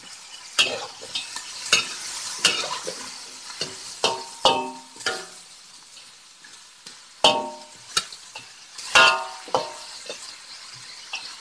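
Metal spatula scraping and knocking against a wok while duck, radish and mushrooms are stir-fried, over a steady frying sizzle. Several strokes ring briefly, the loudest about seven and nine seconds in.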